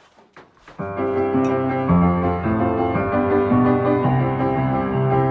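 Background music: held chords come in about a second in and shift every second or so.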